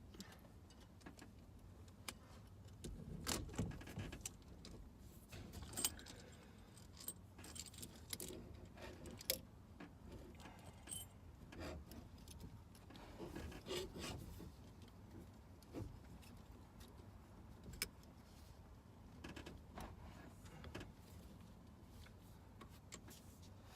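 Intermittent light metallic clinking and rattling with scattered sharp clicks, from small metal parts and tools being handled during a steering wheel hub install.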